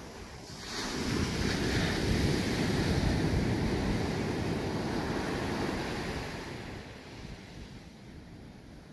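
Small waves breaking and washing up a sandy beach. The wash swells about a second in, then fades away after about six seconds.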